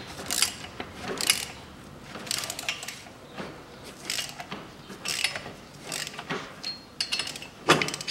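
Ratchet wrench clicking in short bursts about once a second as it turns a bolt in the threaded removal hole of a rust-seized front brake disc, forcing the disc off the hub. One louder knock near the end.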